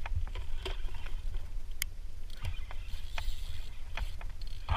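Wind rumbling on the microphone, with scattered clicks and knocks from a fishing rod and reel being handled in a plastic kayak while the angler sets the hook.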